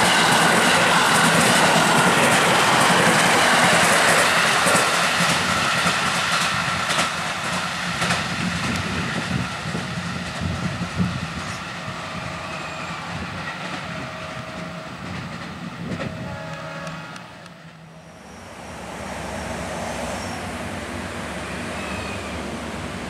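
Electric commuter train passing close by, its wheels clicking rhythmically over the rail joints, the noise fading as the last cars go away. Later come three short horn-like tones about a second each, then quieter steady noise.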